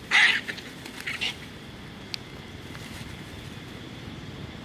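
Young long-tailed macaques screeching in a scuffle: one harsh scream about a quarter second long, then a few shorter squeals within the next second. A single sharp click follows a little later.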